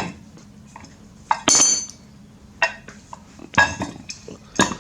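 Loose steel parts of a dismantled bench vise clinking as they are handled and set down: a few sharp metallic knocks, the one about a second and a half in ringing briefly.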